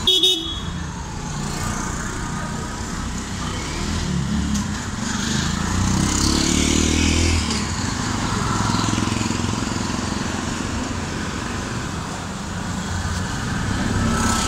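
Street traffic: a short vehicle horn toot at the very start, then motor vehicle engines running steadily, their low hum swelling for a couple of seconds midway.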